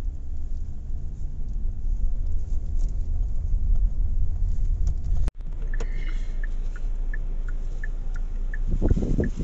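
Car interior: a steady low rumble from the engine and the road. After a sudden break about halfway through, the turn-signal indicator ticks evenly at about three a second as the car turns. A short rough noise comes near the end.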